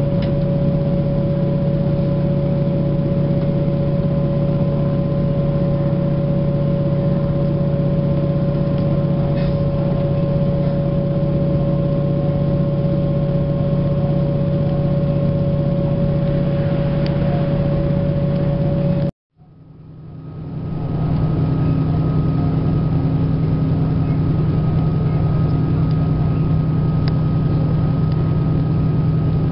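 Steady drone of a diesel multiple-unit train's engine and running gear, heard from inside the carriage. About two-thirds of the way in the sound cuts out abruptly, then fades back in with a slightly different, higher engine note.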